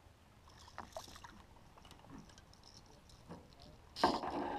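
Faint splashing and small ticks of a small largemouth bass being brought in at the water's surface, then about four seconds in a sudden loud clatter as the fish is swung onto the boat's deck and flops on it.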